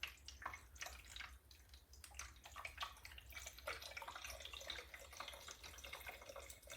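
Water being poured through a funnel into the small tank of an Evapolar evaCHILL personal air cooler: faint, irregular trickling and dripping.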